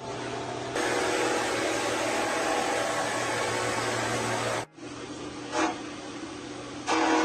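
Steady whirring of a running machine, such as an electric motor or power tool, in edited segments: it cuts off sharply twice, and after the second cut it is quieter, with two brief louder bursts near the end.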